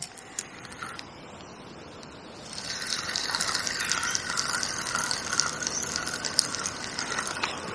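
Fishing reel being wound in, starting a couple of seconds in: a steady whirring with a wavering tone and fine rapid clicking as the line is retrieved.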